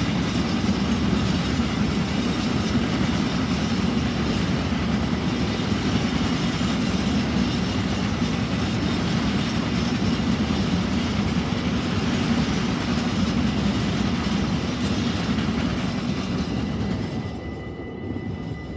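Freight train of mostly empty container flat wagons rolling past on the rails: a steady, loud rumble with the clickety-clack of wheels over the rail joints, dropping away near the end as the last wagon goes by.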